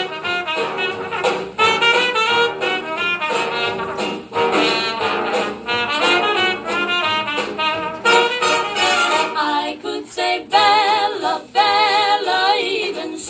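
Swing-era jazz band playing an instrumental break, with brass and saxophones carrying the melody. In the last few seconds, wavering held notes take over.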